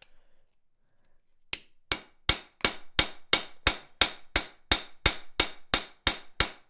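Hand hammer on steel over the anvil, peening a lug's rivet tenon through a chest-handle backplate: about fifteen quick, evenly paced ringing blows, roughly three a second, starting about a second and a half in.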